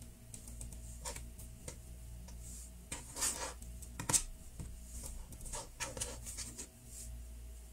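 Fingers pressing, smoothing and rubbing soft Play-Doh modelling dough on a tabletop: scattered soft taps and short squishing rustles, a little louder about three and four seconds in.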